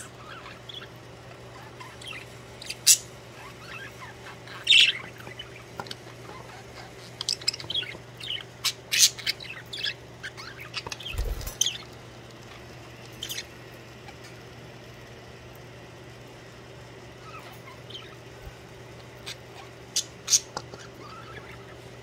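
Budgerigars chirping in short, scattered calls, busiest in the middle and again near the end, over a steady low hum. One low thump comes about eleven seconds in.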